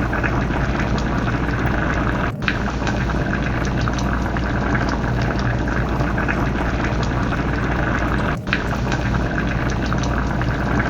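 Fish curry bubbling and crackling in the pan as it simmers, a steady dense sound that breaks off briefly twice.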